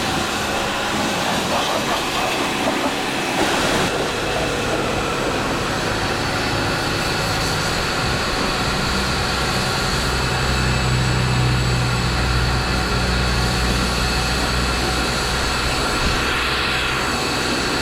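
Car engine idling steadily on a freshly installed custom-grind camshaft, with a deeper low rumble building about halfway through.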